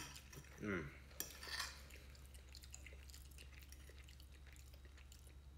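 A metal fork clinking and scraping on a plate of chili and rice, with a sharp clink at the start and faint clicks after, along with eating sounds. A short falling vocal murmur comes about half a second in.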